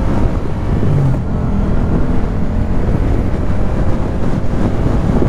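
Wind rushing over a helmet-mounted camera's microphone, with a Yamaha MT-07's parallel-twin engine running steadily at cruising speed underneath.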